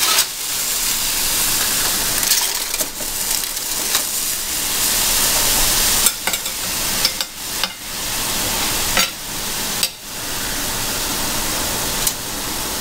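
Steady sizzling from the fish juices collected in the foil inside the hot wok smoker, with a few sharp metallic clinks from the tongs and wire rack as the smoked fish are lifted out.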